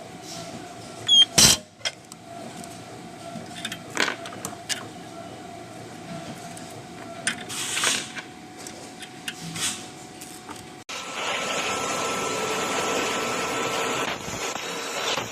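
Cable-making factory machinery: a steady hum broken by scattered clanks and clicks, the loudest about a second and a half in. About eleven seconds in it cuts abruptly to a louder, even whirring machine noise.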